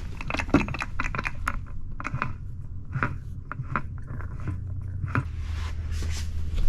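Metal drivetrain parts clinking and knocking as they are handled and moved, some strikes ringing briefly, over a steady low hum.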